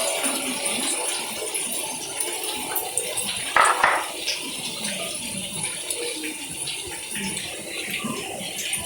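Indoor public-space ambience: indistinct crowd chatter over a steady rushing hiss, with one brief louder sound about three and a half seconds in.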